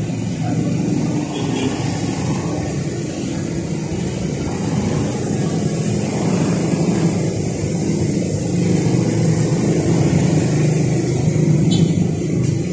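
Engine of a truck-mounted crane running steadily while the crane hoists a load.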